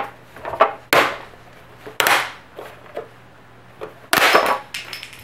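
Sharp cracks and clicks from the plastic snap clips and flexing sheet-metal top cover of an HP ProCurve 2524 network switch as the cover is pried off by hand. It comes as a string of separate cracks, the loudest and longest about four seconds in.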